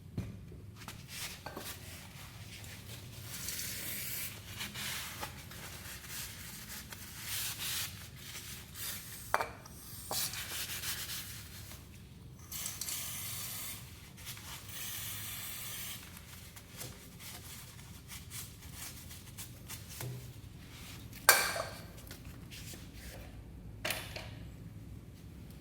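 Stretches of rubbing noise lasting a second or two each, with two sharp knocks, one about nine seconds in and a louder one about 21 seconds in.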